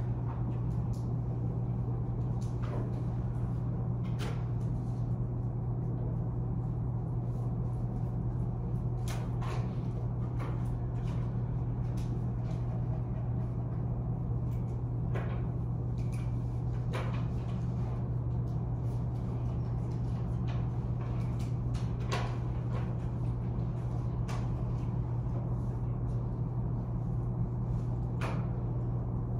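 Classroom room tone during quiet seatwork: a steady low hum, with scattered light clicks and knocks every second or two.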